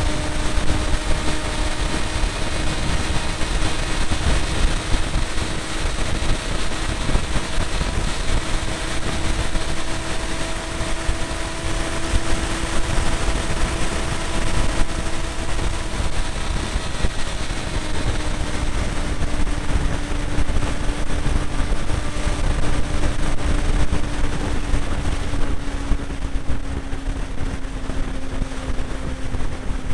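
Motorcycle engine running steadily at highway cruising speed, over heavy wind rumble on the microphone. The engine note drops a little a bit past halfway and sinks slowly after that as the rider eases off.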